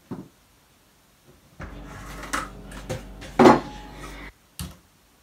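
Kitchen dishes clattering and knocking while a kitchen cupboard is rummaged through, a short run of knocks with the loudest about three and a half seconds in.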